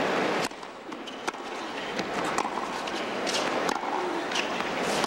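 Crowd murmur stops abruptly about half a second in. Then come tennis balls struck by racquets in a rally, sharp pops roughly once a second over quiet stadium air.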